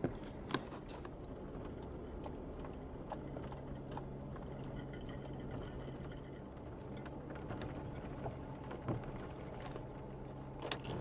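Jeep Wrangler Rubicon JK crawling slowly over a rough dirt trail, heard from inside the cab: a steady low engine hum with scattered small knocks and rattles from the bumpy ride.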